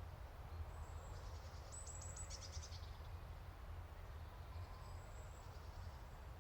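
Faint outdoor nature ambience over a steady low rumble: a songbird sings a quick run of high chirping notes about two seconds in, and a fainter run about five seconds in.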